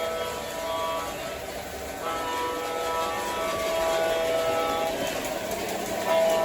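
O gauge model locomotive's sound system blowing its train horn: several long blasts of a multi-note horn chord, each lasting a second or more.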